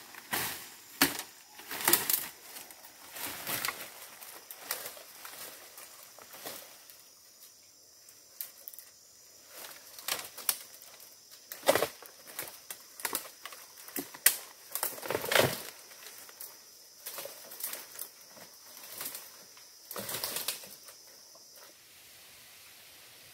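Leaves rustling and dry stems crackling and snapping as a person pushes through dense undergrowth on foot, in irregular bursts, with a faint steady high tone behind. Both stop shortly before the end.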